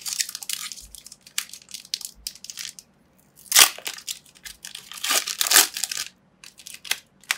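Foil wrapper of a Pokémon trading-card booster pack crinkling and tearing as it is ripped open by hand: a run of crackles, loudest about three and a half seconds in and again around five seconds in.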